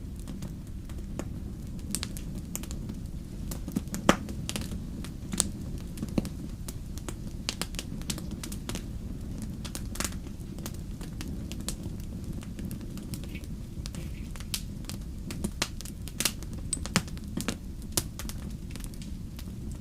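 Wood fire in a fireplace crackling: irregular sharp pops and snaps over a low, steady rumble of the burning flames. The loudest pop comes about four seconds in, with a cluster of stronger snaps around sixteen to eighteen seconds.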